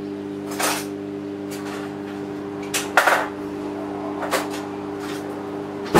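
Metal cutlery and kitchen utensils clattering a few times as a drawer is rummaged through, the loudest rattle about halfway through, over the steady hum of a running kitchen appliance.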